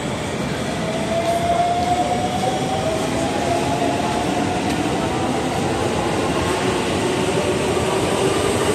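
Electric train pulling away, a single motor whine rising slowly in pitch over a steady running rumble that grows a little louder.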